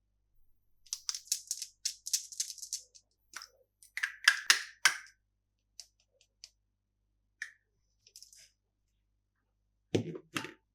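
Candy packaging being handled and opened: bursts of crinkling plastic wrapper, then a run of sharp crackles and clicks, with scattered single taps and a fuller rustle near the end.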